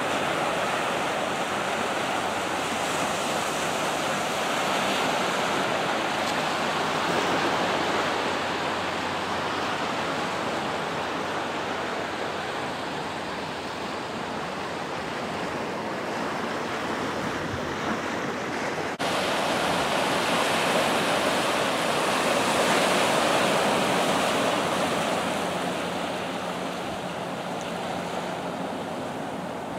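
Ocean surf breaking and washing in among rocks and seaweed, swelling and easing as each wave comes in and drains back.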